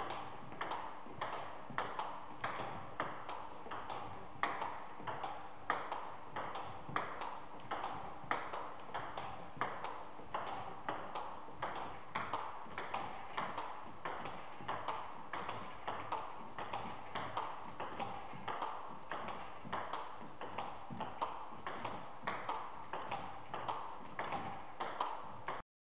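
Table tennis ball in a backhand push rally: the ball clicks in a steady, even rhythm, alternately struck by the bats and bouncing on the table. The strokes are backhand pushes, cutting backspin under the ball. The sound cuts off abruptly near the end.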